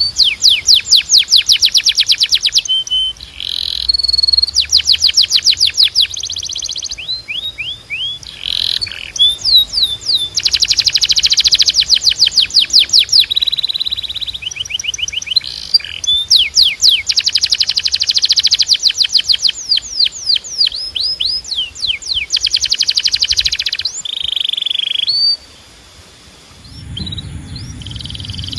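Domestic canary singing: a long song of rapid trills made of quickly repeated sweeping notes, alternating with held whistled notes, with a brief pause near the end.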